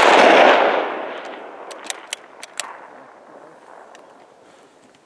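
Report of a long-range rifle shot rolling and echoing across the valley, fading away over about three seconds, with a few sharp ticks about two seconds in.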